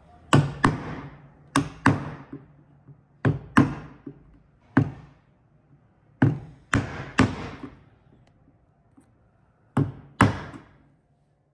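Wooden mallet striking a chisel to chop out a housing in a length of timber: about a dozen sharp knocks, mostly in close pairs, with pauses between.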